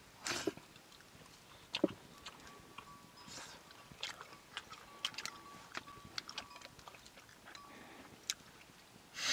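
Someone eating: irregular small clicks and short crunches of biting and chewing food, the loudest just after the start and again near the end.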